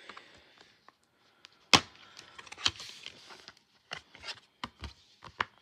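Plastic DVD case snapping open with one loud click, then a run of sharp plastic clicks as the disc is pressed off the case's centre hub.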